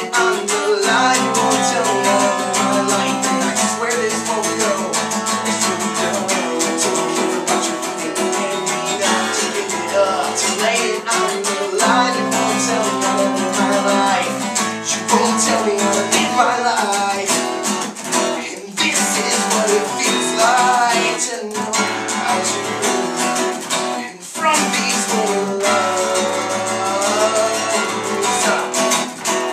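Live acoustic song: an acoustic guitar played with a man singing the melody over it.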